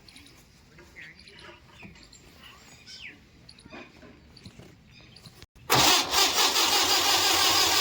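Faint scattered ticks and chirps, then a loud, steady engine noise that begins abruptly about five and a half seconds in.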